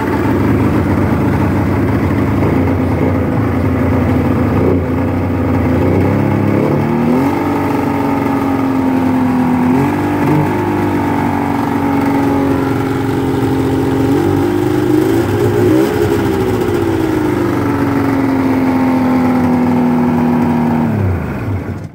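1999 Polaris XCR 800 snowmobile's two-stroke three-cylinder engine running just after a pull start, very loud, idling with a few short throttle blips. Near the end it is shut off and its pitch sinks away to a stop.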